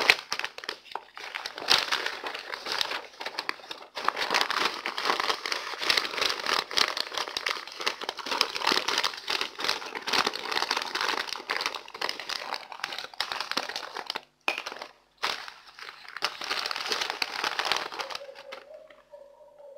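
Sheet of butter paper (baking paper) crinkling and rustling as it is folded and wrapped by hand around a bunch of fresh herbs. The crinkling breaks off briefly twice about three-quarters through and dies down near the end.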